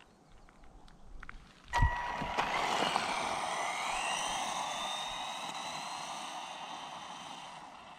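Tamiya DT-03 Neo Fighter RC buggy's Torque-Tuned 540 brushed motor and drivetrain whining as the car launches with a sharp knock about two seconds in and accelerates hard down the road. The whine climbs in pitch as it gathers speed, over a rushing hiss, and fades as the car pulls away.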